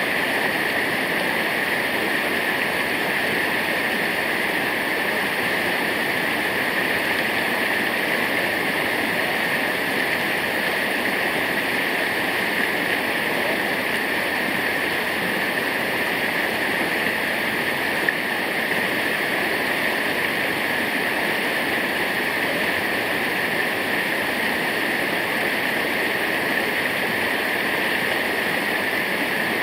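Water of a waterfall rushing steadily, an unbroken hiss.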